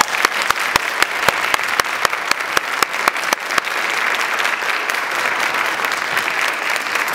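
Audience applauding, with a few loud single claps close by during the first three seconds or so.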